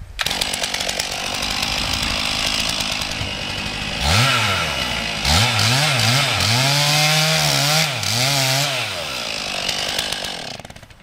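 Stihl MS 461 two-stroke chainsaw revved to full throttle and cutting into a large tree trunk. From about four seconds in, the engine note repeatedly dips and rises as the chain bites into the wood under load. It drops away near the end as the saw is drawn back.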